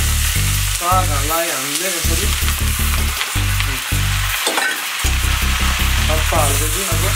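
Food frying in hot oil in a pan, a steady sizzle with stirring, over background music with a pulsing bass and a melody.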